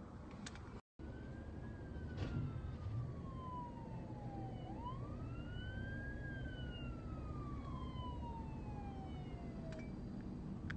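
Police car siren wailing. Its pitch falls slowly, sweeps quickly back up about halfway through, then falls slowly again, over a steady low traffic rumble. The sound cuts out briefly near the start.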